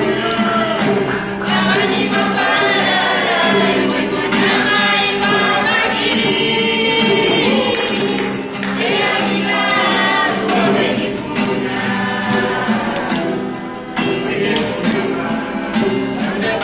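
Mixed group of men and women singing a gospel hymn together, accompanied by a strummed acoustic guitar.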